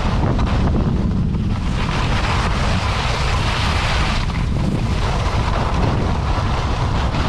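Wind buffeting the microphone of a camera moving down a ski run, over the hiss of edges carving across groomed snow, which swells twice.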